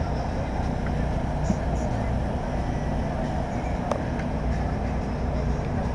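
A steady engine drone with a constant low hum, unchanging in pitch and level.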